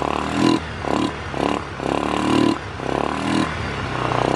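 Yamaha Xeon 125's liquid-cooled single-cylinder four-stroke engine idling steadily. It runs smooth, without the tek-tek knock it had before a new piston was fitted.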